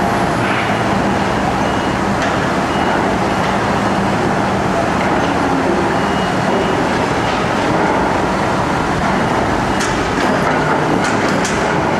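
Heavy construction machinery running with a steady, loud mechanical din. A few sharp clicks come near the end.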